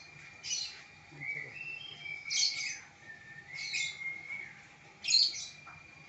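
Hill myna calling: a series of about four sharp squawking calls roughly a second or more apart, mixed with clear whistled notes that step upward in the middle; the loudest call comes about five seconds in.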